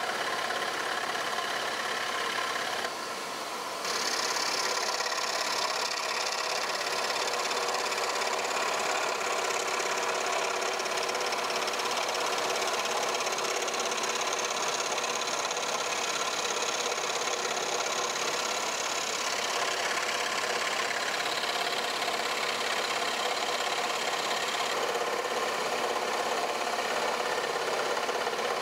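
Axminster AW405FS scroll saw running, its reciprocating blade cutting through 8 mm plywood with a steady buzz. The sound drops for about a second around three seconds in, then returns with more hiss as the blade bites again.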